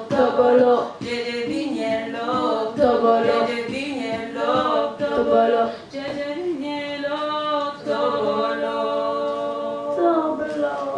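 A small group of female voices singing a cappella in several-part harmony, with a short break about six seconds in and long held chords after it.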